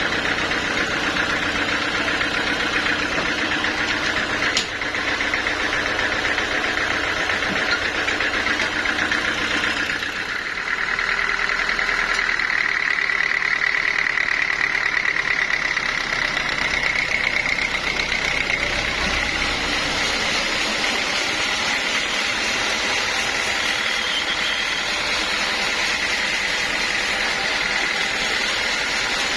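Sawmill machinery running steadily, with a change in tone about ten seconds in.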